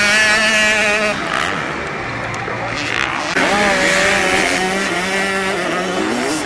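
Motocross dirt bike engines revving hard. One climbs in pitch and is held high for about a second; a second loud burst of revs cuts in about three and a half seconds in and holds to near the end.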